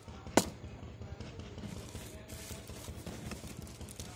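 A sharp knock about half a second in, then cardboard box flaps and plastic wrapping being handled as a packed laptop is unboxed.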